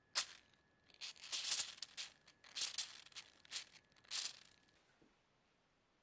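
A pick scraping rust and crusted grime off the corroded threaded fitting of an old brass lighter: a series of short, scratchy scrapes that stop about four and a half seconds in.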